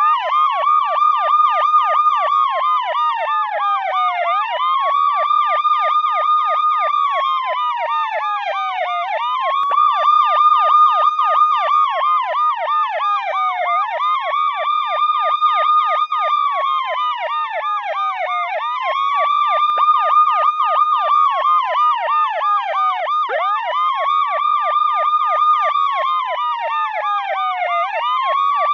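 Police siren sounding continuously: a slow wail that rises, holds and falls about every five seconds, layered with a rapid yelp sweeping up and down several times a second.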